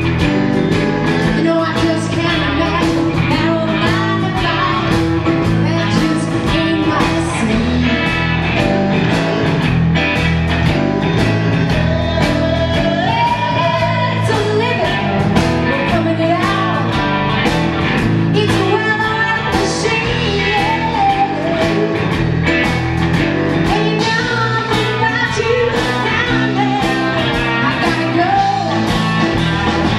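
Live blues-rock band playing: a woman sings lead over electric guitar, bass guitar and drums keeping a steady beat.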